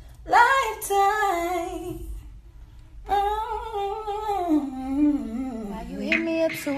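A woman's unaccompanied voice humming a wordless melody with runs, in two long phrases with a short break about two seconds in; the second phrase sinks lower before rising again.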